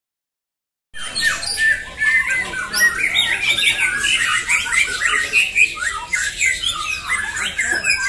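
Several caged white-rumped shamas (murai batu) singing at once in a contest, a dense stream of rapid overlapping whistles, chirps and harsh notes: the fast 'tembakan' bursts of competition song. It starts abruptly about a second in.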